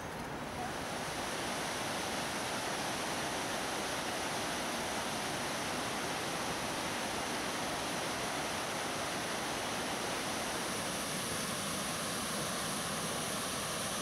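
Aysgarth Falls on the River Ure: white water rushing steadily over broad rock steps, rising a little about a second in.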